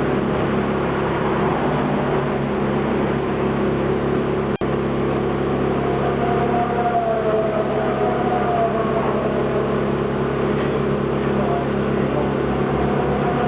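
McLaren MP4-12C GT3's twin-turbo V8 idling steadily, with a momentary break in the sound about four and a half seconds in.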